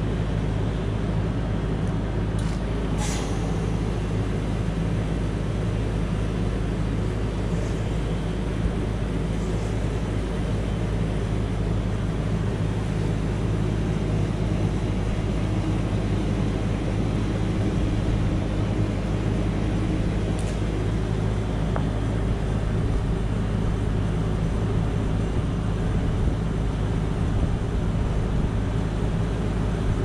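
Bosch inverter heat pump outdoor unit running in a defrost cycle: a steady inverter compressor hum made of several low tones, holding an even level, with a faint tick about three seconds in.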